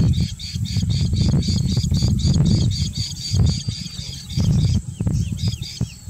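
Forster's terns calling: rapid high-pitched chattering notes, several a second, giving way near the end to a few short downward-slurred calls. A loud, uneven low rumble runs underneath.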